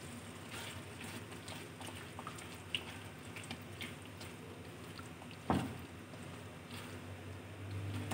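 Quiet bubbling of semolina halwa simmering in a nonstick pan while a spatula stirs it, with small scattered pops and clicks and one sharper knock about five and a half seconds in.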